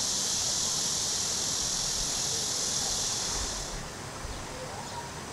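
Outdoor ambience with a steady high hiss that stops about three and a half seconds in, leaving a quieter low background.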